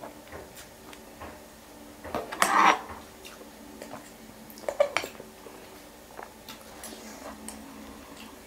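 Metal fork and spoon clinking and scraping against a glass bowl of noodle soup during eating, with a loud slurp about two and a half seconds in and a shorter one near five seconds.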